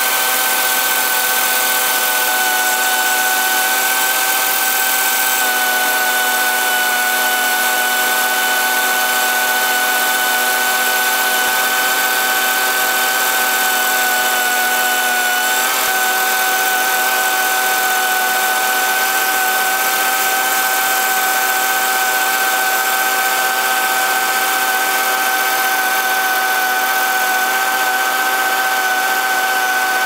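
Combine running during corn harvest, heard from inside the grain tank: a steady high machine whine over a dense hiss, with shelled corn pouring from the fill auger into the tank.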